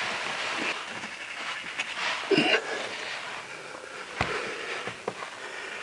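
Breathing of a man working under a car, with a few light clicks and knocks of hand tools against the underside, one sharper knock a little past halfway.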